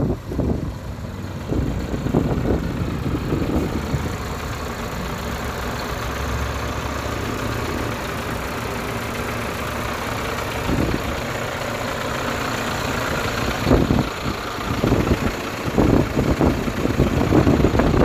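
Iveco Trakker 360 concrete mixer truck's diesel engine idling steadily, with gusts of wind buffeting the microphone near the start and over the last few seconds.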